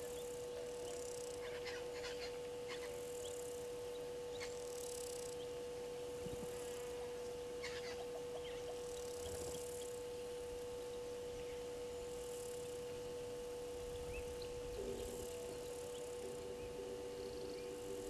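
Outdoor bush ambience with a steady hum-like tone throughout, a few short high bird calls, and soft high chirring that comes and goes every second or two.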